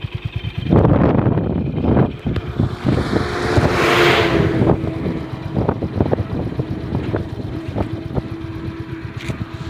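Honda CB350 RS's single-cylinder engine running at idle, with a rapid, even thud from the exhaust. It is blipped loudly about a second in and again at two seconds. A swell of rushing noise rises and falls around four seconds in.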